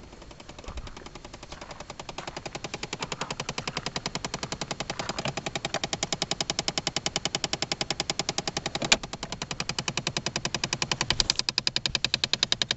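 A rapid, even clicking from behind the centre console of a 2011 Chevy Impala, in the heater and air-conditioning ductwork, starting faint and growing steadily louder, with one sharper click about nine seconds in. It is the unexplained noise that starts by itself whether or not the car is running.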